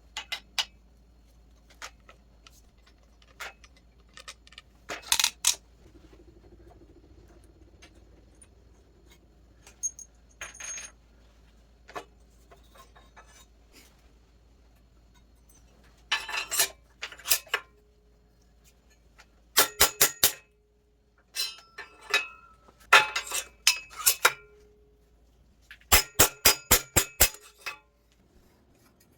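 Small metal tools and parts clinking and tapping, with scattered single clicks and a few quick runs of sharp metallic strikes, about six a second.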